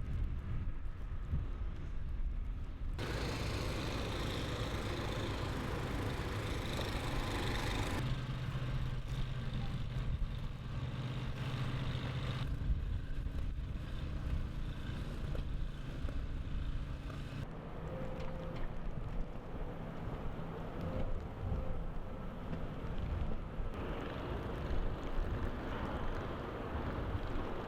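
Outdoor street ambience in a snowstorm: low rumbling noise with wind on the microphone and, in places, a steady engine hum. The sound changes abruptly several times from shot to shot.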